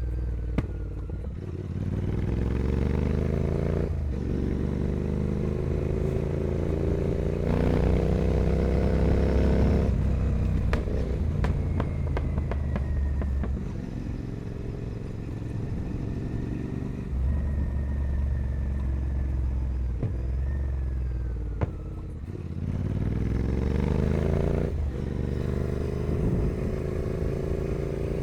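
Royal Enfield Continental GT 650's parallel-twin engine through a full 2-into-1 Carbox Racing carbon exhaust, pulling up through the gears with the pitch rising and dropping back at each upshift. It eases off in the middle, then accelerates again near the end.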